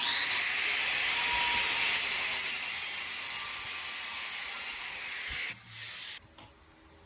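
A power tool cutting, a steady hiss-like cutting noise that starts abruptly and cuts off after about six seconds.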